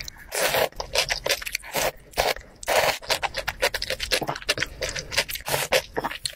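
Close-miked eating sounds: ramen noodles slurped in several short noisy bursts, with wet mouth smacks and chewing clicks in between, and a spoonful sipped near the end.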